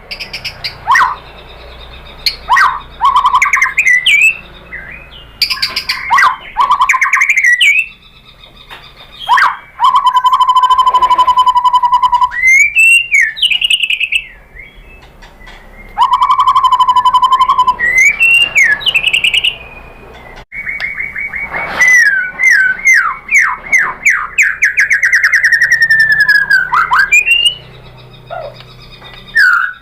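White-rumped shama (murai batu) singing a loud, varied song of whistled phrases, fast rattling trills and long runs of quick up-and-down notes, mixing in mimicked phrases (isian). The song breaks off abruptly a couple of times.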